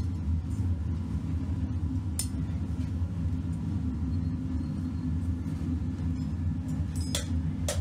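A steady low mechanical rumble, with a few sharp clinks about two seconds in and twice near the end.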